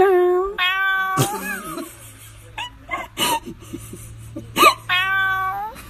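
Domestic cat meowing: long, drawn-out meows at the start and again near the end, one of them rising and then held, with a few short, sharp sounds between them.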